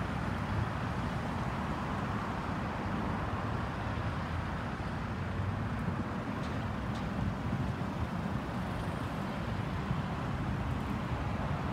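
Airbus A320-216's CFM56 turbofan engines, a steady distant rumble as the airliner climbs away after take-off.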